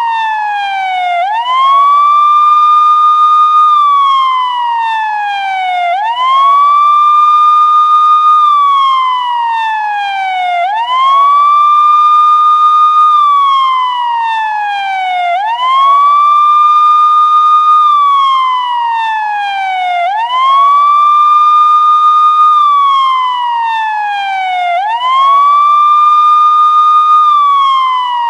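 Police siren in a slow wail: the tone sweeps quickly up, holds high for about two seconds, then slides steadily down, repeating about every four and a half seconds, six times over.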